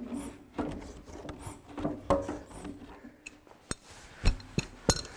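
Scattered clicks and knocks with light rubbing from a Ferguson TE20's drivetrain being turned by hand through the PTO, rotating the flywheel to line up the clutch splines as the engine and gearbox halves are slid together. A few sharper knocks come in the second half.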